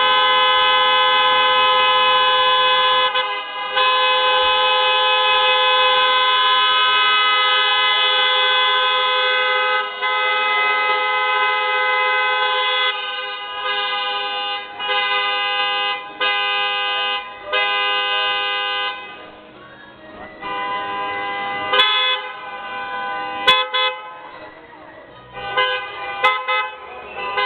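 Car horn honking: long held blasts for the first dozen seconds or so, then a string of short honks about a second each, quieter in the later part.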